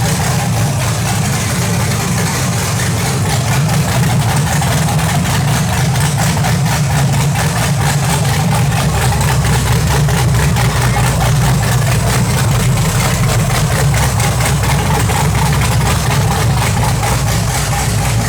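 Freshly rebuilt LS V8 in a Nissan S14 idling steadily and loudly on its first run, with open headers and no exhaust fitted.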